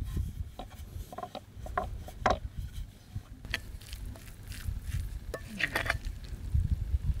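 A metal spoon stirring and scooping a moist mixture of chopped cooked greens in a metal bowl: soft squelches with scattered clinks and scrapes of spoon against the bowl, and a longer scrape near the end, over a steady low rumble.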